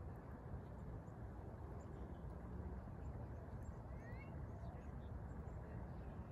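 Steady low outdoor rumble, with two short rising bird chirps about four seconds in.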